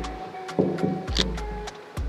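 Background music with a steady beat, held notes and a deep bass line.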